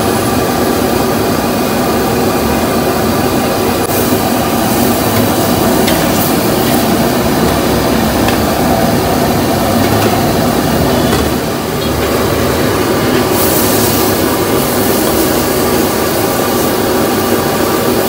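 Steady roar of a street-stall gas wok burner under noodles being stir-fried, with a few sharp clacks of the metal spatula against the wok and a short burst of sizzling hiss about two-thirds of the way in.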